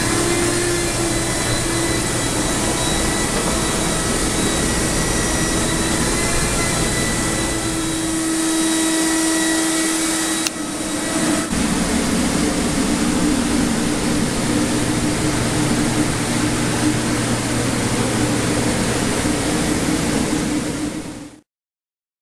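Water-damage drying equipment, air movers and dehumidifiers, running with a loud steady fan rush and motor hum and whine. There is a break about ten seconds in, after which the hum sits slightly differently, and the sound stops abruptly near the end.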